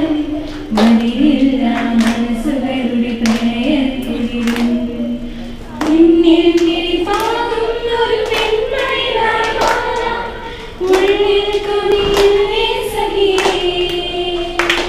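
A small group of girls singing together from song sheets in long held phrases, with a sharp hand clap keeping time about every three-quarters of a second.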